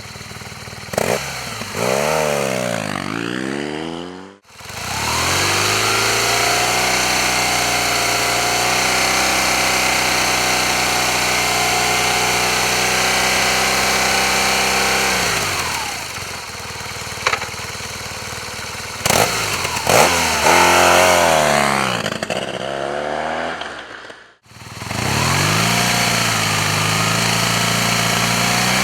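Air-cooled BMW R 1200 GS boxer twin running through an aftermarket exhaust. It is revved up and down, then held at steady revs for about ten seconds, then revved again and held steady once more. The sound cuts out abruptly twice between the sections.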